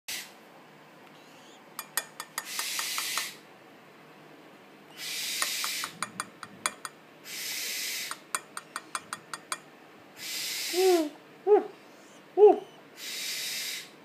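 Tropical screech owl chicks, two to three weeks old, give about five hoarse hisses, each about a second long, with runs of quick sharp clicks between them. In the last few seconds come three short, loud calls that slide downward in pitch.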